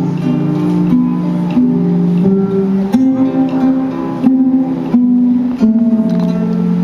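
Instrumental music: acoustic guitar strumming under held notes that step from chord to chord, with no singing.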